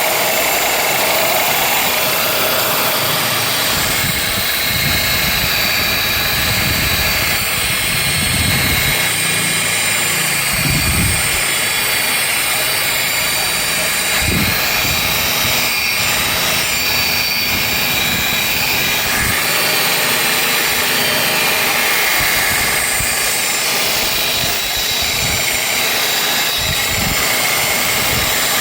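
Electric paint buffer (polisher) running steadily on a vehicle's paint, a constant motor whine with irregular low rumbles as the pad is worked over the panel.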